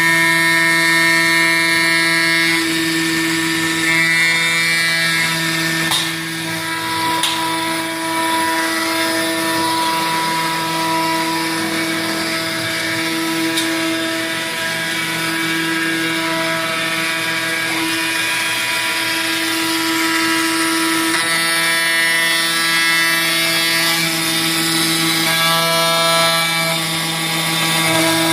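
CNC machine spindle cutting Ergal (7075 aluminium alloy): a steady whine of several pitched tones, with the upper tones fading in and out as the cutting load changes, and a few sharp ticks about four to seven seconds in.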